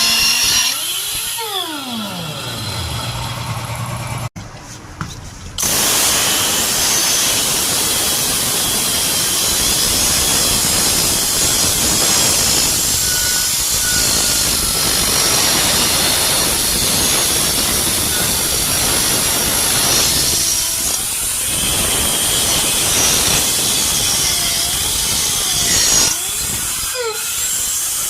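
Pneumatic air grinder running with a loud rush of exhaust air. In the first few seconds its pitch falls away; after a short drop-out it runs steadily again.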